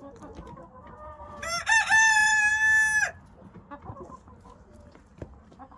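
A rooster crowing once, about a second and a half in: a long call that rises at the start and then holds a steady pitch for over a second.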